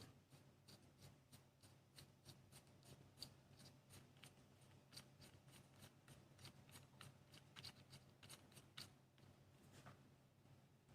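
Faint, irregular small plastic clicks from turning the adjusting knob of a disposable circumcision stapler counterclockwise to open the device.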